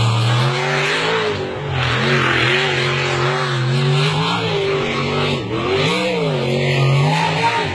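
Unlimited racing hydroplane running at speed: a steady engine note that dips and climbs in pitch several times, over a loud rushing hiss.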